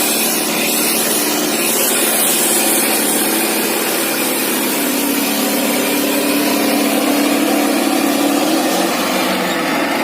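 Indo Farm 3055 DI tractor's diesel engine running steadily while pulling two harrows. Its note rises slightly about halfway through and drops back near the end.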